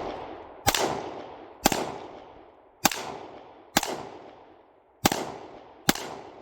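Six gunshots at a steady pace, about one a second, each with a long echoing tail.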